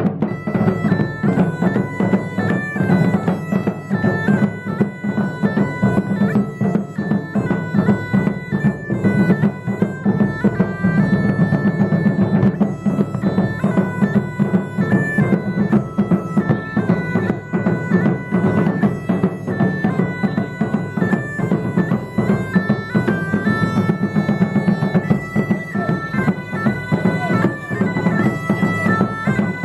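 Two bagpipes playing a lively tune over their steady drone, coming in right at the start, with drums, including a large double-headed bass drum beaten with a stick, keeping a driving beat beneath them.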